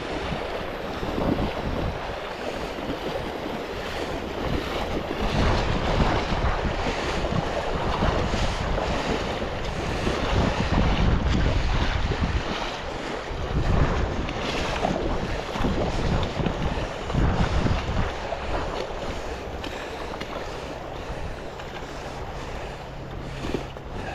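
Wind buffeting the microphone in irregular low gusts over the steady rush of river water.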